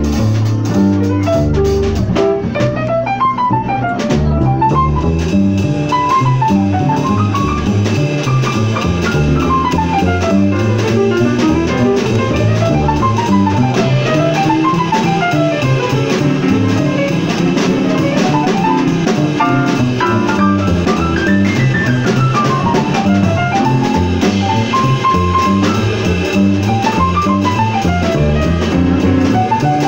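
Live jazz piano playing fast runs that climb and fall over a walking bass line and drums.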